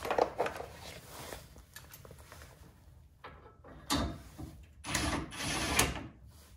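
Steel skid plate and bolts knocking and scraping against a truck frame as the plate is held up and the bolts are fitted loosely by hand: scattered clicks and knocks, then a scrape lasting about a second near the end.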